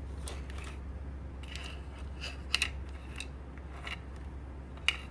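Light plastic clicks and scraping from handling the disassembled Little Tikes Story Dream Machine toy projector, with two sharper clicks, one about two and a half seconds in and one near the end, over a steady low hum.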